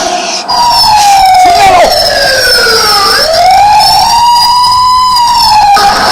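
Siren-style burglar alarm wailing. Its pitch slides down over a couple of seconds, then swings up and arches slowly back down.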